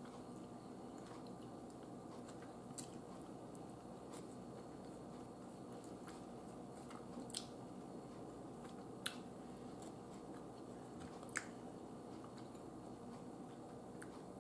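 Faint eating sounds: slow chewing with a handful of sharp clicks of a metal fork against a plate, the loudest three in the second half, over a steady low room hum.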